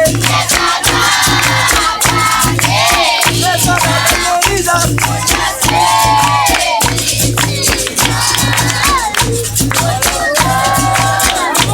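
Capoeira roda music: berimbau with its caxixi rattle and pandeiro keeping a steady rhythm, hand claps, and voices singing over it.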